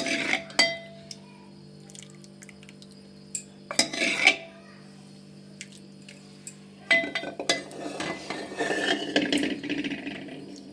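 Metal spoon or ladle clinking and scraping against dishes while hot soup is served: a few separate knocks with a short ring, then a busier run of clinks and scraping in the last few seconds.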